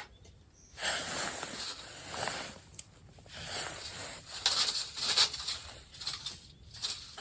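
Irregular bursts of rustling and scraping, like gear or fabric being handled, with one sharp click about three seconds in.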